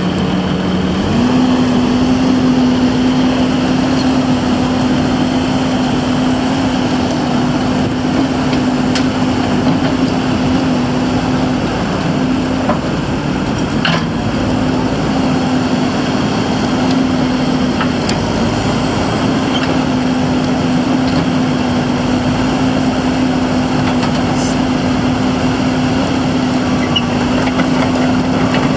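John Deere 120D excavator's diesel engine running steadily while the boom and bucket are worked; its pitch steps up about a second in as the engine is brought up to working speed, then holds steady.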